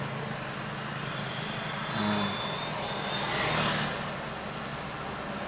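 Road traffic with a TATA LPT tipper truck's diesel engine running steadily as it drives up close, the sound swelling into a rush of engine and tyre noise about three and a half seconds in as it passes.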